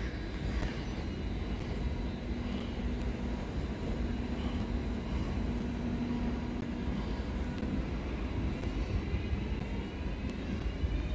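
Train running in the station: a steady low rumble with a faint hum, and a faint rising electric whine near the end.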